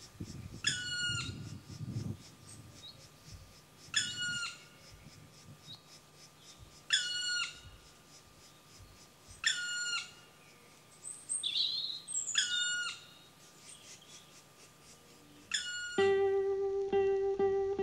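Black woodpecker giving its single drawn-out call six times, about three seconds apart. Acoustic guitar music starts near the end.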